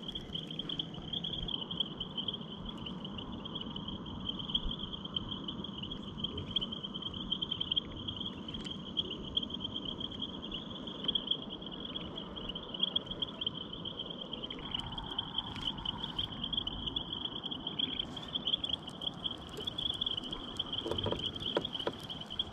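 Insects chirring in a steady, high-pitched chorus, with the low whir of a baitcasting reel being wound in and a few faint clicks.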